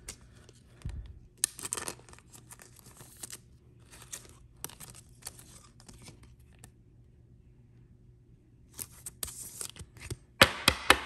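Foil trading-card pack wrappers and cards being handled: short crinkling, rustling scrapes in clusters, a quiet pause, then a louder run of plastic scrapes near the end as a card is slid into a rigid clear plastic card holder.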